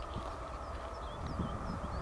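Low rumble of an approaching diesel freight train, building toward the end, with birds chirping.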